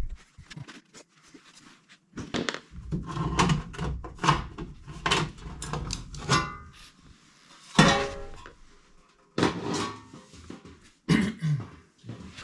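Irregular knocks, clicks and rattles of a furnace's metal panels and parts being handled, with one loud metallic clack about eight seconds in.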